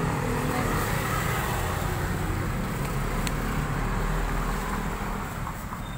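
Steady road-traffic noise from cars passing on a city street, a continuous rumble and hiss. A single faint click comes a little past the middle.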